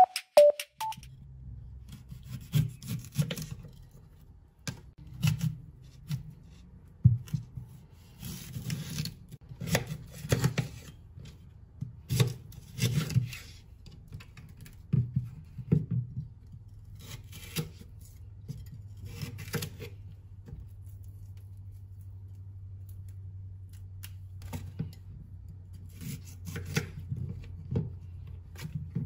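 Kitchen knife working a chayote on a bamboo cutting board: irregular scraping and cutting strokes with light knocks on the wood, over a low steady hum.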